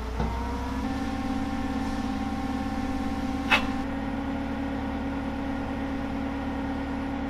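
Forklift engine running steadily, its pitch shifting slightly just under a second in, with one sharp knock about three and a half seconds in.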